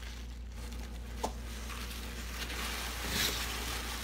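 Soft rustling of foam packing peanuts and cardboard as hands shift a wrapped doll in its shipping box, with a sharp click about a second in and a louder rustle near the end.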